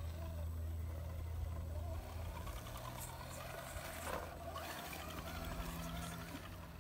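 RC rock crawler truck's motor and drivetrain whirring as it crawls over rock, the pitch wavering up and down with the throttle.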